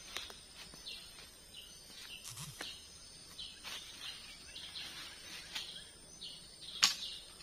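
Small birds giving short, repeated high chirps, with a few scattered knocks; a sharp knock near the end is the loudest sound.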